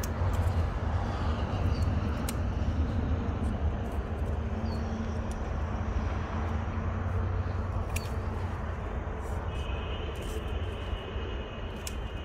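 A steady low motor hum, with a few sharp clicks over it.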